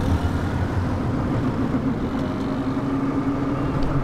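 Auto-rickshaw engine running steadily under way, heard from inside the cabin, with road noise.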